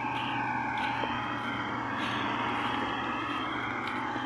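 Combine harvester running with a steady engine drone as it harvests rice.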